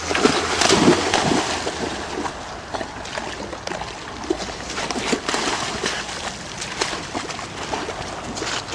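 A dog wading through a shallow, muddy stream, the water splashing and sloshing around its legs, loudest in the first second or so.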